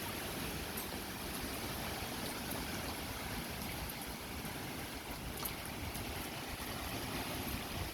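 Strong wind blowing steadily, with a low uneven rumble of gusts on the microphone.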